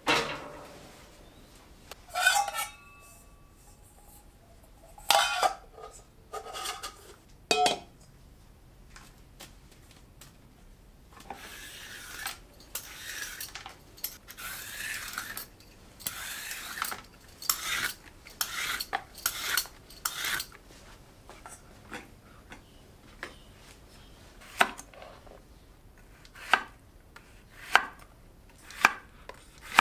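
Stainless cookware clanking and ringing a few times, then a stainless peeler scraping the ridged skin off an angled luffa in quick repeated strokes. Near the end a knife chops through the luffa onto a bamboo cutting board, about one sharp strike a second.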